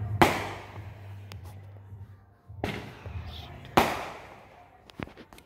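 Backyard fireworks going off: three sharp bangs about one to two seconds apart, each trailing off in an echo, then a couple of smaller pops near the end. A faint low steady hum runs underneath.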